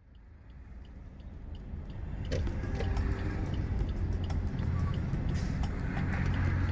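Car driving on a road: a steady low rumble of road and engine noise, with scattered light clicks and rattles. It fades in over the first two seconds or so, then holds steady.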